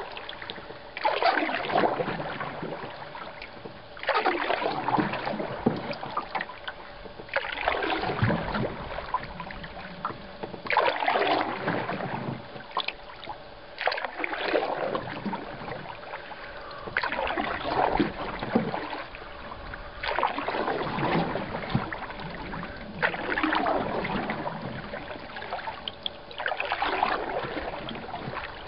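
Canoe paddle strokes in lake water: a splashing swish as the blade enters and pulls, repeating about every three seconds.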